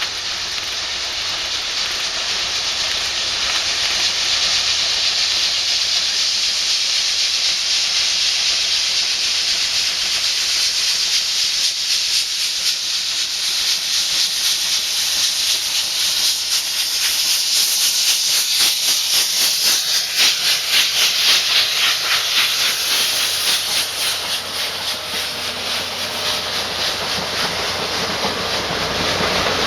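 JNR Class C11 steam locomotive (C11 171) working, with a loud, steady hiss of steam and fast, regular exhaust beats that grow loudest about two-thirds of the way through.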